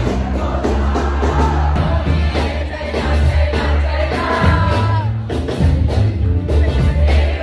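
A live band plays an amplified song with singing and a heavy, steady bass. Audience members close by shout and whoop over the music.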